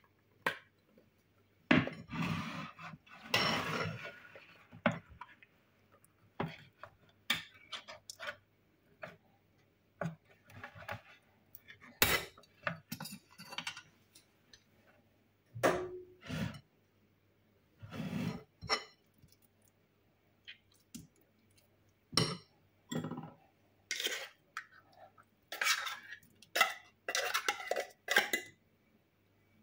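A ring-pull tin of tuna being torn open with a rough scrape, followed by scattered clinks and scrapes of metal cutlery against a glass bowl and the tin as the tuna is forked out into the batter.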